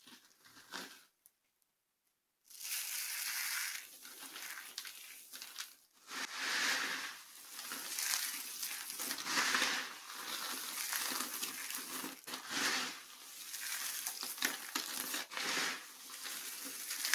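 Dry soap being crushed, a dense crackling crunch that swells and fades in waves, after a short gap of silence about a second in.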